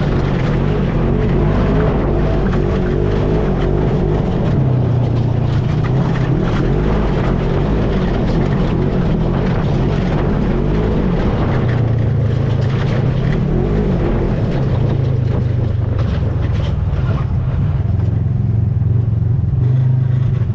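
ATV engine running steadily under way, a continuous low drone with the knocks and rattles of the machine over rough ground.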